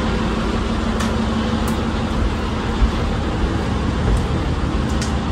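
A houseboat's engine running, a steady low hum under an even rush of noise, with a few light knocks.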